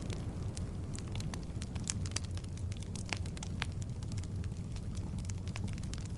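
Logs burning in a fireplace, crackling and popping in sharp, irregular snaps over a steady low rumble of the flames.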